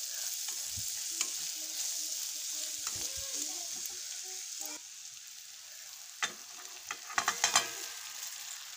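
Onion, tomato and peanut masala sizzling in oil in a kadai while a spatula stirs and scrapes the pan; the sizzle drops about five seconds in. Near the end come several sharp scrapes and knocks as cooked rice is tipped into the pan from a steel vessel.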